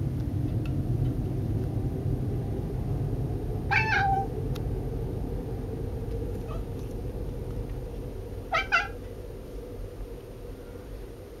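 Silver Bengal cat giving two short, high-pitched calls, one about four seconds in and one near nine seconds. A low steady rumble runs underneath and slowly fades.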